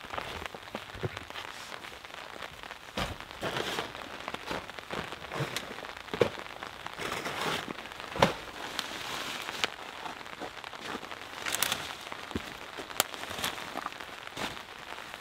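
Steady rain falling, with scattered clicks, knocks and rustles as a folding camp chair is set up and a backpack is handled.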